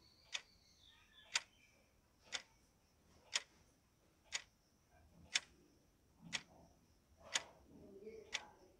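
Clock-tick sound effect counting down the last seconds of a timer: nine sharp ticks, one a second.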